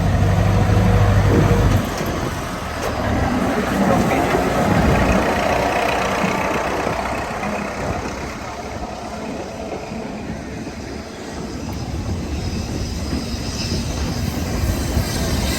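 Narrow-gauge railway train running, a steady rumbling noise. A low engine hum cuts off suddenly about two seconds in.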